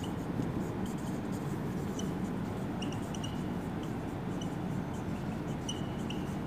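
Felt-tip marker writing on a whiteboard: scattered short, faint squeaks of the tip on the board, more of them in the middle of the stretch, over a steady low room hum.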